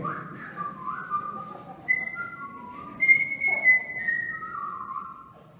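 A man whistling a short, wandering tune, one clear note at a time stepping up and down, in the idle, carefree way of someone playing dumb and pretending not to hear.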